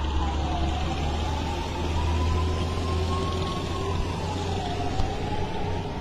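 A siren wailing slowly, its pitch falling and climbing back about every three and a half seconds, over a steady low rumble.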